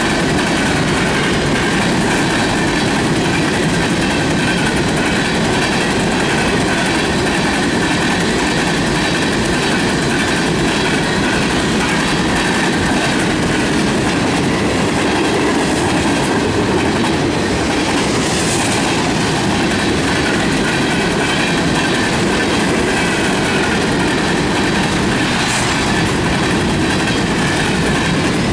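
Freight cars of a mixed train rolling past at close range: a steady, loud rumble and rattle of wheels on rail that holds even throughout, with two brief hisses near the end.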